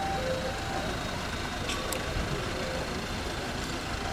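A fire engine's diesel engine idling steadily.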